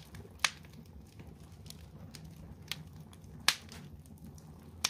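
Fire crackling: irregular sharp pops, three of them loud (about half a second in, past the middle and at the very end), over a low steady rumble.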